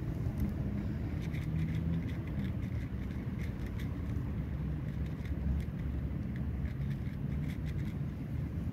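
Steady low outdoor rumble, with faint, scattered ticks and chirps over it.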